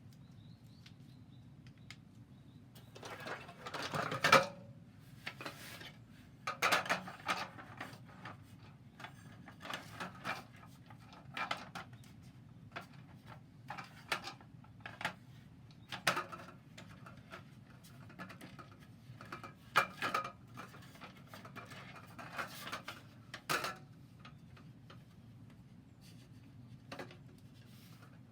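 Wood fire in a wood-burning stove crackling, with irregular sharp snaps and knocks over a steady low hum.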